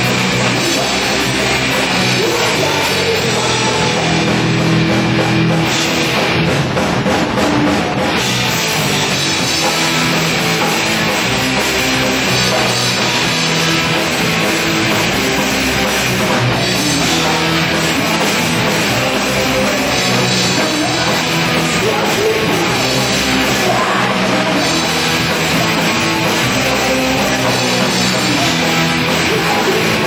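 Live rock band playing loud, dense music with a drum kit, without a break.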